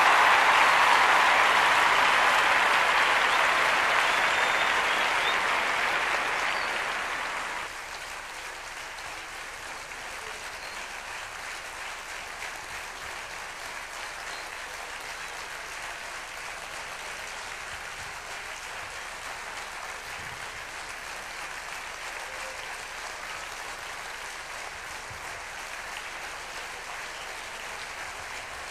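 Audience applauding, loud at first and fading, then dropping suddenly to a much softer, steady applause about a quarter of the way through.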